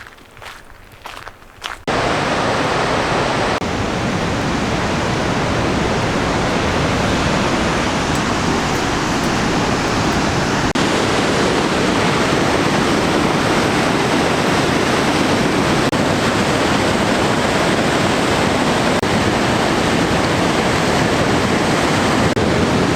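Loud, steady rushing of a waterfall and its river running high after heavy rain. It cuts in suddenly about two seconds in, after a few quiet steps.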